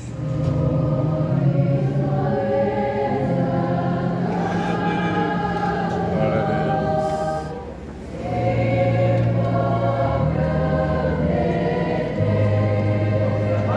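Church wind orchestra, with a baritone saxophone close by, other saxophones and organ, playing a slow hymn in sustained chords. The sound drops briefly about eight seconds in, between two phrases, and then the next phrase begins.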